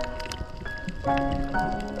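Background music: a tune of clear, held notes changing about every half second.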